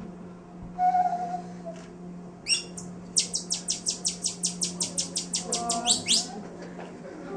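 A fast run of short, high, bird-like chirps, about six a second, from about two and a half seconds in to about six seconds in. A steady low hum runs underneath.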